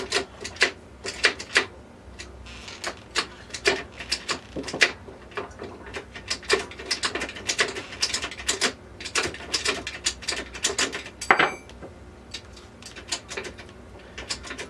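Irregular metallic clicks and clunks of a T96 overdrive transmission's shift lever and shift rails being worked back and forth, the shift into reverse sticking because the unit has no oil in it. One sharper metal knock with a brief ring about eleven seconds in.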